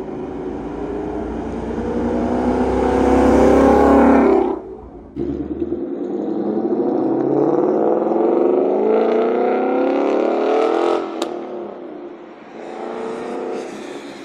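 2017 Mustang GT's Coyote 5.0 V8 through a Corsa Xtreme cat-back exhaust, pulling hard under acceleration: the pitch rises for about four seconds, drops briefly at a gear change, then climbs in a second long pull. A sharp crack comes about eleven seconds in as the engine note falls away, followed by a shorter rev near the end.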